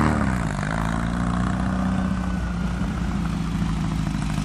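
Volkswagen Baja Bug's engine, its revs falling back in the first half-second, then running at a steady pitch as the car pulls away.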